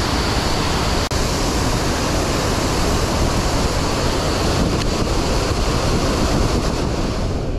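Loud, steady rush of a waterfall pouring over a wide low dam close by, drowning out everything else.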